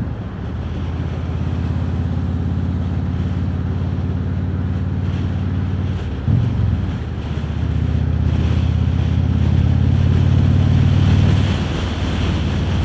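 Harley-Davidson Road King Special's V-twin engine running at highway cruise, with wind rushing over the microphone. The engine note briefly changes about six seconds in, then gets louder for a few seconds before easing near the end.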